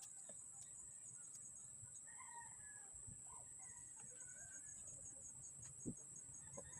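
Near silence: faint bird calls in the background over a steady high whine, with a single sharp knock near the end.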